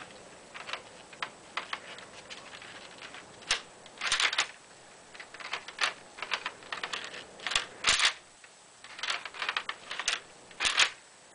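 Plastic Lego bricks clicking and clacking as the toy rifle's bolt is worked by hand: irregular sharp clicks, with short rattling clusters about four seconds in, near eight seconds and near the end.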